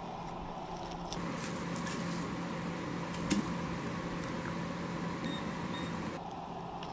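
A steady low hum with a wash of noise through most of it. Near the end a handheld metal-detecting pinpointer gives two short high beeps as it is held over the dig.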